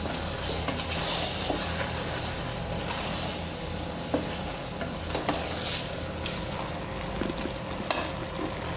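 Wooden spoon stirring mushrooms and chicken intestines in a hot stainless-steel pot, with a steady sizzle and a few sharp clicks of the spoon against the pot. A steady low hum runs underneath.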